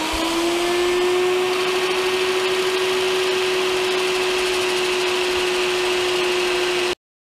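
Jancy magnetic drill's electric motor spinning up with a rising whine, then running at steady speed with a constant whine. It stops abruptly near the end.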